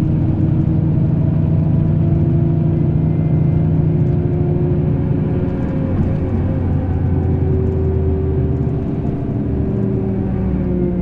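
Scania K380 IB coach engine running under way. Its note shifts about six seconds in, then climbs slowly and begins to ease off near the end.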